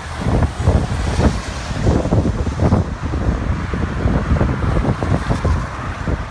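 Strong gusty wind buffeting the phone's microphone in uneven low rumbles, over a steady rushing noise.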